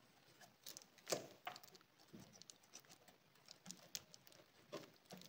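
Faint scattered clicks and taps of a plastic battery plug connector and its wires being handled and pushed together, the clearest about a second in.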